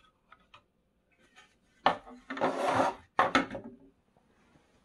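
Plastic casing halves of an Inse S600 cordless vacuum being pulled apart: a sharp snap, about a second of plastic scraping and rubbing, then two more snaps close together.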